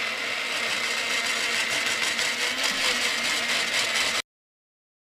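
Countertop blender pureeing peas, its motor running steadily with a faint high whine over the churning; it cuts off suddenly about four seconds in.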